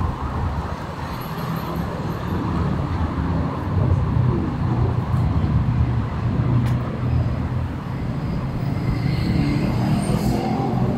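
Street traffic: vehicle engines running with a steady low rumble, one of them rising in pitch near the end.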